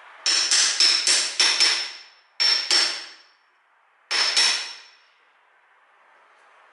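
A metal tool tapping sharply on a metal mixer tap, each strike leaving a high ringing tone. The strikes come in three groups: a quick run of about six, then two, then a last pair about four seconds in. The tapping is meant to loosen the tap's stuck internals.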